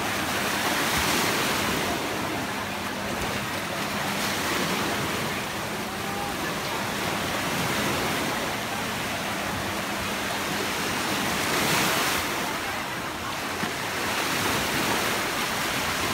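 Sea waves washing in a steady rush, swelling about a second in and again near twelve seconds.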